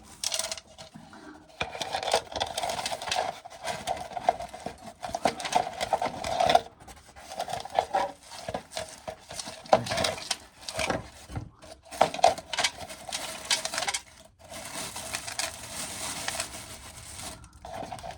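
Dried corn being shelled: kernels scraped and rubbed off the cob with a rasping, rattling sound that comes in irregular bouts broken by short pauses.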